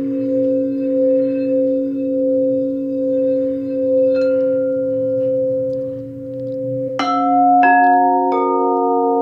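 Quartz crystal singing bowls ringing in several steady, overlapping tones, the higher one wavering slowly. About two-thirds of the way through, three bowls are struck in quick succession, each adding a new bright ringing tone that sustains.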